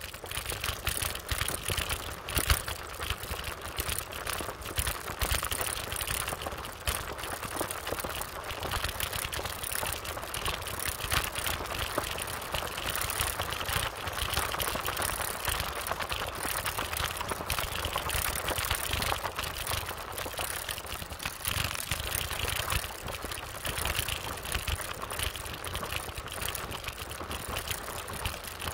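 Motorbike riding at speed: the engine runs steadily under wind buffeting the microphone, with frequent small rattles and knocks from the bike over the road.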